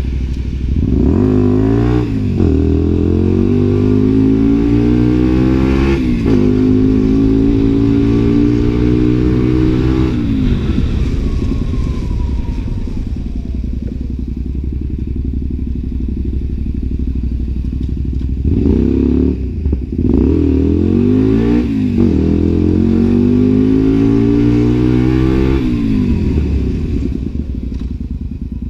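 Honda Varadero V-twin motorcycle engine pulling hard up through the gears, its pitch climbing and then dropping at each upshift. It eases off and runs lower for several seconds before pulling away through another three shifts, and rolls off again near the end.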